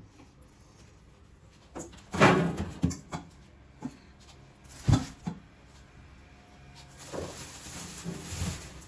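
Household items being handled and set down while a refrigerator is organized. There is a cluster of knocks and clatter about two seconds in, one sharp knock near the middle, and a longer stretch of handling noise near the end.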